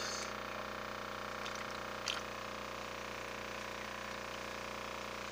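Hands scooping and splashing in a shallow tub of water to catch a koi fry, with two brief small splashes about two seconds apart, over a steady mechanical hum.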